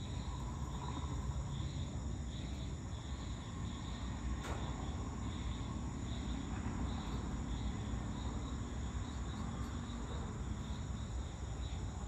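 Chorus of insects, a steady high chirring with a faint pulse, over a low steady background rumble; a single sharp click a little over four seconds in.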